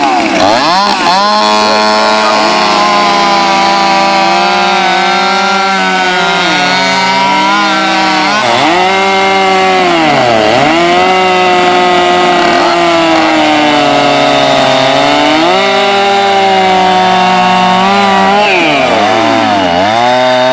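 Three two-stroke chainsaws running at full throttle together while cutting through a hardwood elm log: two Stihl MS660s, one a hot saw with an aftermarket CPI Racing expansion pipe and intake kit, and a Husqvarna 372XP. Their engine pitches dip again and again as the chains bite into the wood and climb back up.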